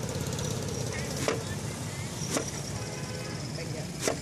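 A cleaver chopping on a wooden chopping board: three sharp strikes about a second apart, the last one the loudest, over a steady low hum.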